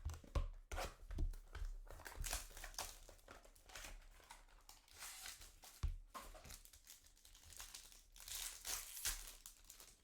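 Foil trading-card pack wrappers crinkling and tearing as packs are opened and cards handled.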